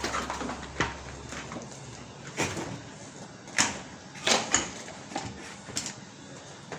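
Scattered knocks and clicks of something being handled, a few sharper ones in the middle, over a low hum that fades out about two seconds in.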